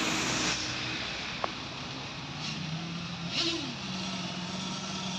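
An engine running at a steady pitch over a constant outdoor hiss, briefly revving up and dropping back about three and a half seconds in.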